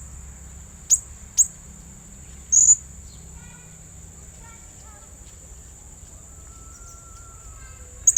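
Blue-crowned hanging parrot (serindit) calling in sharp, shrill, high-pitched notes that drop in pitch. Two single notes come about a second in, then a short burst a little after two and a half seconds, and a quick run of four or five near the end. A steady high-pitched whine runs underneath.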